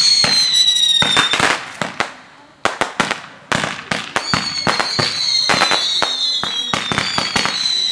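Backyard fireworks going off: a dense run of sharp bangs and crackling pops, with high whistles that slide slowly down in pitch, one at the start and another from about four seconds in.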